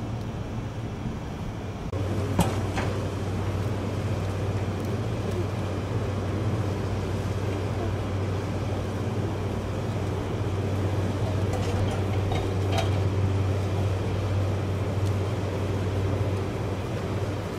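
Steady low hum of parked JR 205 series electric trains' onboard equipment, louder from about two seconds in. A sharp click comes shortly after, and a few fainter knocks follow later.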